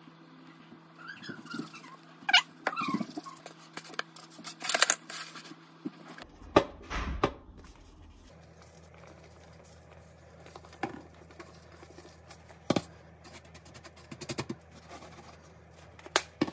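Kitchen handling sounds from a plastic shaker of grated Parmesan: sharp clicks and knocks as it is opened, handled and shaken over a tortilla on a metal sheet pan, with a quick run of rattling shakes about five seconds in. A faint steady hum sits underneath.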